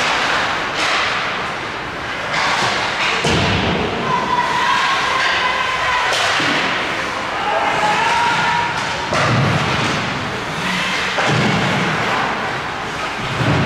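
Ice hockey play in a rink: several dull thuds, typical of the puck and players hitting the boards, over a noisy echoing arena wash with voices calling out.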